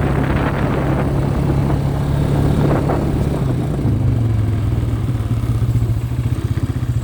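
Engine of a small farm vehicle running steadily as it is ridden over rough field ground, with rattling over the bumps. The engine note dips a little about halfway through.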